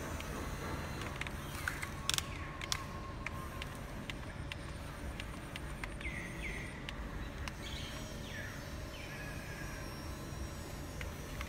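Radio-controlled CAT 320D long-reach model excavator working: its motors and gears give a steady low hum with scattered clicks and ticks as the arm and bucket move, with a cluster of sharper clicks about two seconds in. A few short, high falling chirps come in the middle.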